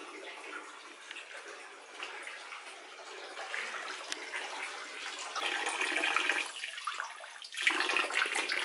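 Spring water running and splashing inside a rock cave, like an open tap. It grows louder over the last few seconds as the water pours over a cupped hand held under it to drink.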